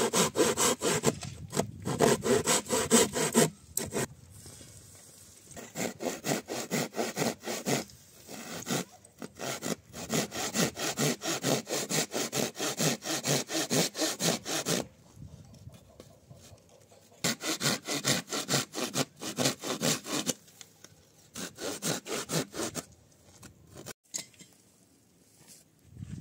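A hand tool worked back and forth in quick, even rasping strokes, several strokes a second, in about five bouts with short pauses between them.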